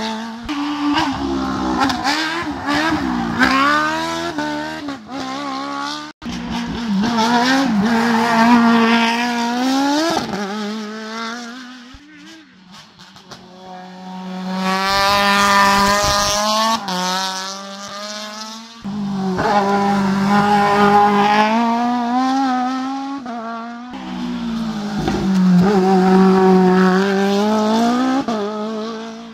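Racing cars climbing a hillclimb slalom one after another, engines revving high and dropping back again and again as they brake and accelerate through the cone chicanes. Each car's sound swells and fades, and the sound jumps from one car to the next several times.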